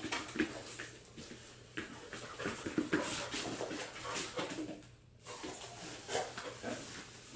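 A Schapendoes dog searching by scent among small tubs on a foam floor mat: quick sniffs, paw scuffs and light knocks as it bumps and noses the tubs.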